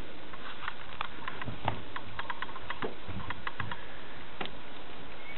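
Irregular light clicks and a few soft thumps over a steady hiss: footsteps and camera handling on a fiberglass sailboat deck.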